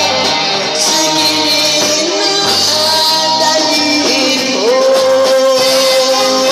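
A woman singing into a microphone with a small live band, bass guitar notes underneath; about halfway through she holds one long note.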